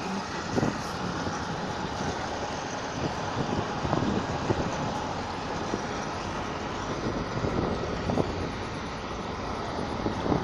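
Moving vehicle heard from inside: a steady rumble with irregular knocks and rattles.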